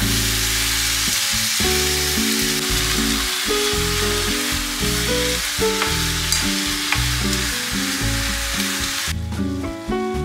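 Minced meat and chopped vegetables sizzling in a hot frying pan as they are stirred. The sizzle cuts off suddenly near the end, as the heat is turned off.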